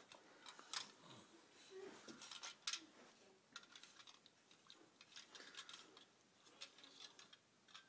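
Faint, scattered clicks and light taps of a toy car being handled, with a few soft murmurs.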